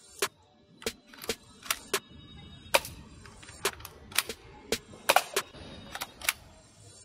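Electric gel blaster rifle firing single shots: about a dozen short, sharp pops at uneven intervals, with a quick cluster of three a little past the middle.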